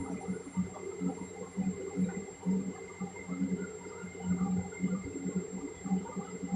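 CRT computer monitor giving off an uneven, fluttering low buzz that swells and drops several times a second, with a faint steady high whine above it: the abnormal noise that is the monitor's sound problem.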